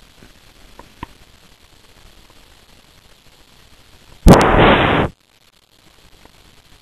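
A loud, rough burst of noise lasting under a second about four seconds in, like the camera's microphone being knocked or rubbed while the puppy is held against it, then the sound drops out briefly. Before it only a faint background with a couple of small clicks.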